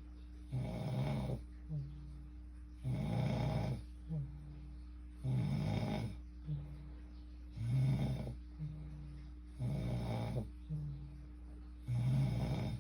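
A sleeping person snoring in a steady rhythm, six snores about two seconds apart, each followed by a short low hum.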